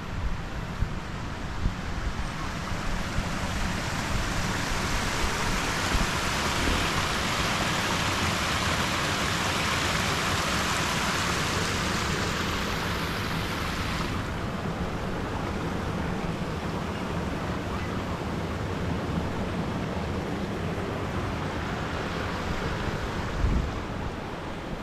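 Wind buffeting the microphone, a rumbling noise throughout, under a high steady hiss that swells over the first several seconds and cuts off sharply about halfway through. A single low bump on the microphone comes near the end.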